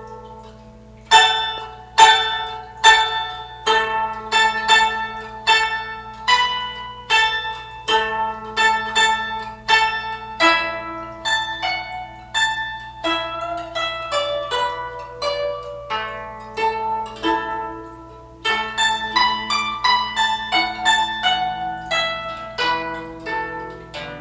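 Guzheng (Chinese plucked zither) playing a melody: a steady run of plucked notes, each ringing and fading, with a short lull near the end before the playing comes denser again.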